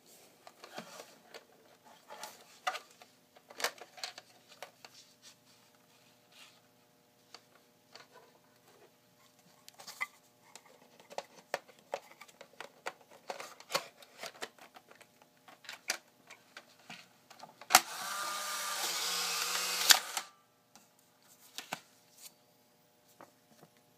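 Polaroid Supercolor 635 CL instant camera being handled: scattered plastic clicks and snaps as the film door is opened and shut, then a sharp click and about two seconds of the camera's ejection motor whirring as it drives a film card out of the front slot, stopping with a click. A faint high whine follows near the end, the flash charging.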